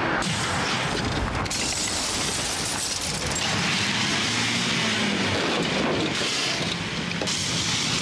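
Car on the move: steady engine, tyre and wind noise, changing abruptly about a second and a half in and again near the end.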